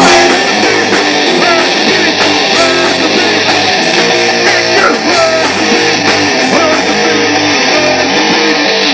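Live rock band with electric guitars, bass and drums starting a song together, loud. Near the end the cymbals drop out while the guitars carry on: the drummer has lost his sticks.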